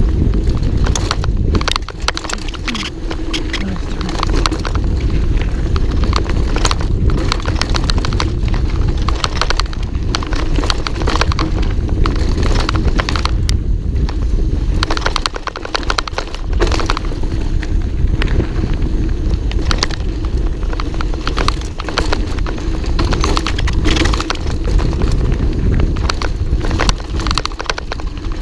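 Mountain bike riding fast down a dirt forest trail: a constant irregular clatter of knocks and rattles as the bike hits roots and bumps, over a steady low rumble of tyres and wind, picked up by the rider's helmet camera.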